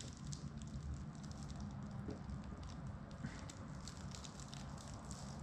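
Clear plastic wrap crinkling and rustling in the hands as a wrapped headlight lens is handled, with many small irregular crackles over a faint low hum.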